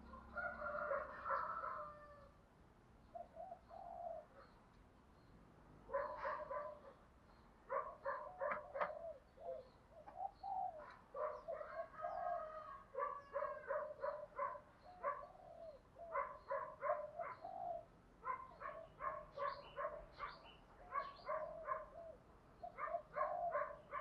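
Spotted dove cooing over and over in short repeated phrases. It is a decoy dove's urging call, used to draw wild spotted doves in.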